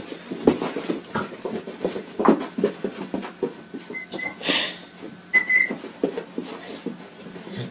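An animal panting in short, quick, breathy strokes, with a few brief high squeaks about halfway through.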